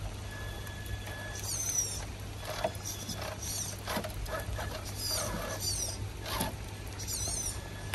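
An MST radio-controlled rock crawler's small electric motor and gears whirring steadily as it creeps over wet rock, with short high chirping bird calls about once a second and a few light knocks of the tyres on the stone.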